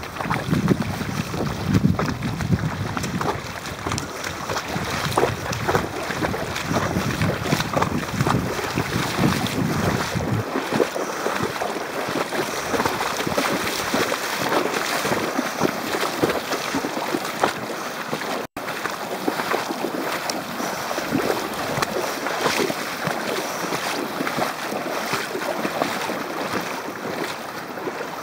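Fast river current rushing steadily, with wind buffeting the microphone for roughly the first ten seconds. The sound cuts out for an instant about two-thirds of the way through.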